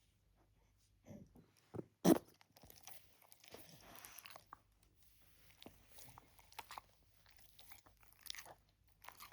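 A pet crunching and chewing its breakfast, with scattered small crunches and clicks and one louder sharp sound about two seconds in.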